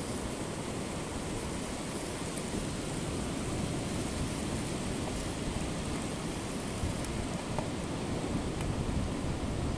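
Ocean surf on a sandy beach: a steady wash of breaking waves and water running up the shore.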